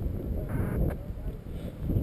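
Wind buffeting the microphone: an uneven low rumble, with a short click about a second in.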